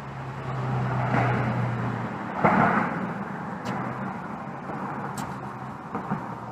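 Car running: a steady low engine hum under a wash of road noise. About two and a half seconds in, a sudden short knock followed by a brief rush of noise.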